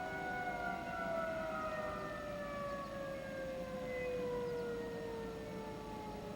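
Outdoor civil defense sirens winding down from a steady tone, the pitch falling slowly and evenly.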